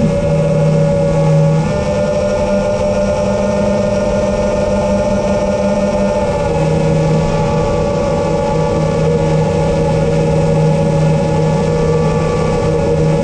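Engine and propeller of a small aircraft running steadily in flight, with a slight shift in pitch about six seconds in.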